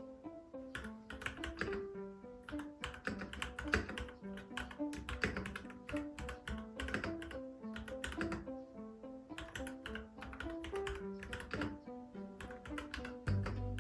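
Background music of short plucked notes with rapid, irregular mechanical keyboard key clicks over it. A steady low hum comes in near the end.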